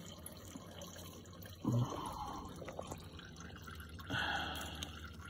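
Engine oil dripping into a drain pan, faint and intermittent. About two seconds in there is a short grunt of effort, and about four seconds in a brief hiss.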